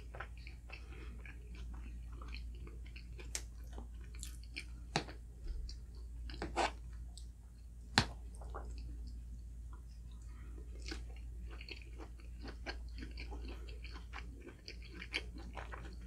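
A person chewing and biting breakfast food close to the microphone, with soft wet mouth sounds and several sharp clicks along the way, the loudest about eight seconds in.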